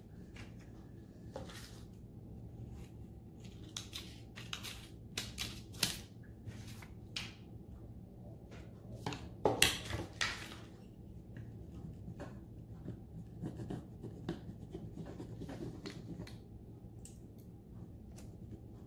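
Scissors snipping through a decor transfer sheet still on its backing paper: a long string of short cuts, loudest about halfway through.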